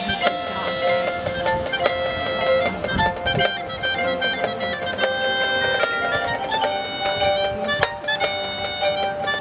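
High school marching band playing, held chords under quick runs of short, high notes from the front-ensemble mallet percussion.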